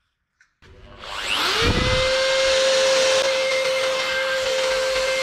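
Electric plunge router switched on: its motor whines up in pitch over about a second, then runs at a steady high speed.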